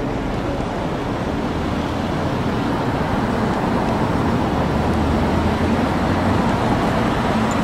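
Road traffic noise: a steady rush of passing vehicles that grows slowly louder.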